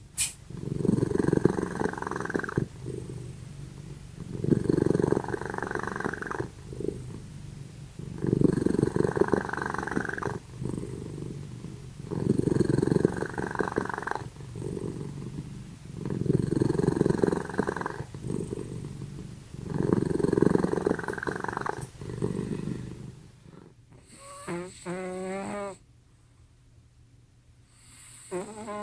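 A domestic cat snoring loudly: six long, rasping snores about every four seconds. Near the end the rhythm breaks into a short, wavering pitched squeak, heard twice.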